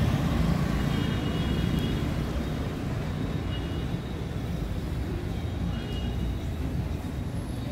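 Road traffic on a busy street: a steady rumble of passing motorcycles and cars, with a few faint short high tones now and then.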